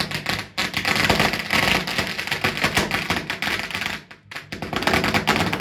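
A round pack of firecrackers going off on the pavement in a rapid string of sharp cracks. The cracks ease briefly about four seconds in, then a few more follow.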